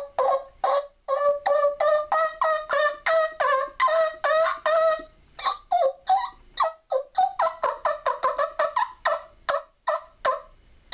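A turkey wing bone yelper call, played by sucking air through it with a kissing sound into cupped hands, giving a fast run of short yelps that imitate a turkey. The notes come about four a second, each breaking between a lower and a higher pitch, with a short pause about five seconds in.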